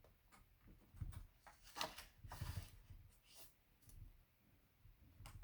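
Faint rustling and crinkling of a sheet of paper being handled and folded, a few short scrapes scattered through, the strongest a little under two seconds in.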